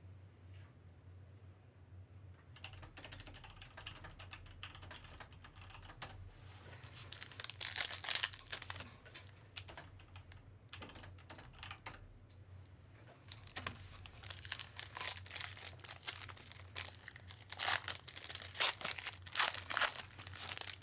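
Trading-card pack wrapper being torn open and crinkled, with dense clicking and rustling as the cards are handled. The crinkling is heaviest about eight seconds in and again late on, over a low steady hum.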